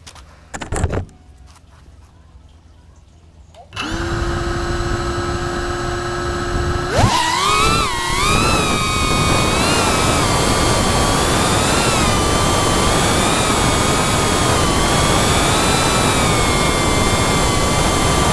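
FPV quadcopter's electric motors spinning up to a steady idle whine about four seconds in, after a brief knock. About seven seconds in they throttle up sharply to a much higher whine that wavers in pitch as the drone flies.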